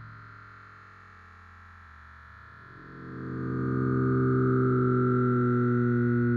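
Background synthesizer music: sustained pad chords that fade down near the start and swell back up about three seconds in.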